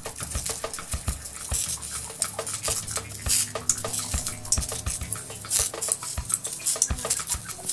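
Water droplets sizzling and crackling on the hot, ridged metal surface of a Leidenfrost maze: a dense, irregular patter of sharp clicks over a hiss, with a faint steady low hum underneath.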